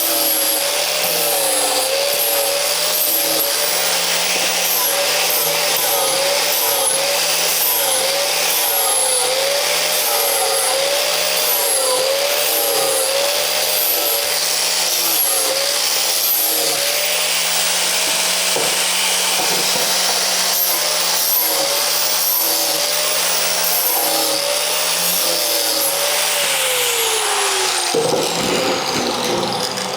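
Angle grinder with a 120-grit flap disc grinding down the sharp edges of cut steel. Its motor whine wavers up and down in pitch as the disc is pressed on and eased off. Near the end it is switched off and winds down in a falling whine.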